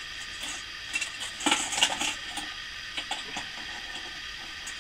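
Small metal tableware clinking and clattering: a few light clicks, a busier cluster of clinks about a second and a half in, then a few more taps near the three-second mark.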